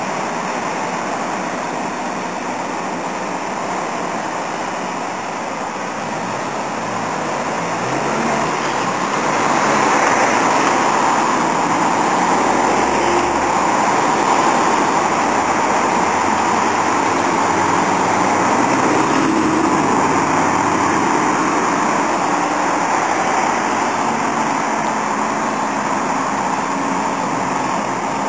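Traffic noise of a convoy of ambulances and trucks driving through a road junction: a steady rush of engines and tyres that grows louder about nine seconds in and stays up, easing a little near the end.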